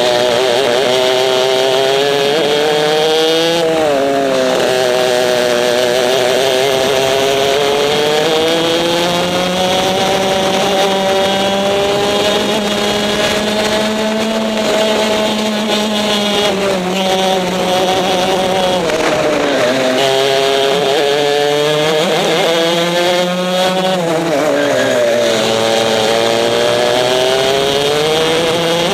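Racing kart's two-stroke engine heard close up from onboard, its revs climbing along the straights and dropping sharply into the corners several times, then rising again on the exits.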